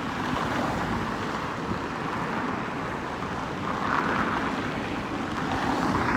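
Steady rushing of wind buffeting the microphone, swelling briefly about four seconds in, with road traffic blended in.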